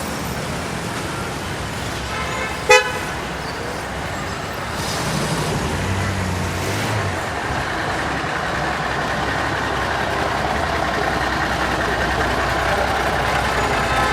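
Manhattan street traffic: a steady wash of passing vehicles and engines, with one short, loud vehicle horn toot about three seconds in and a heavier engine passing a couple of seconds later.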